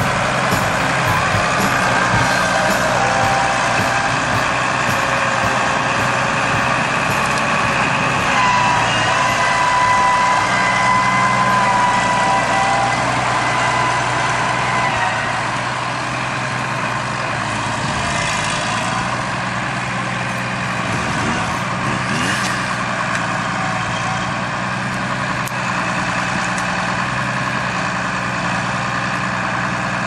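Farm tractor's diesel engine running steadily while its front-loader grab handles the felled trees. A higher whine joins in for a few seconds partway through, and the engine gets a little quieter in the second half.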